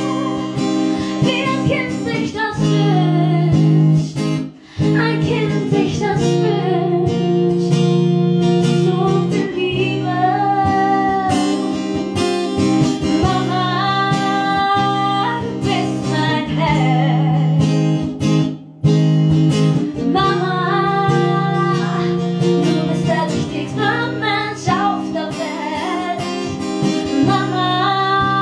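A woman singing a slow song, accompanied by a plucked acoustic guitar.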